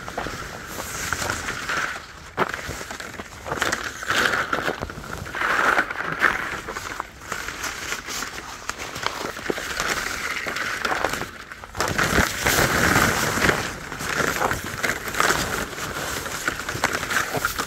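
Irregular rustling and scraping of a coiled bundle of black plastic drip line tubing being handled and carried close to the microphone, swelling and fading in loudness.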